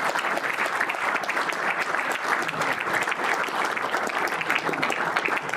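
Audience applauding: a steady, dense clatter of many hands clapping.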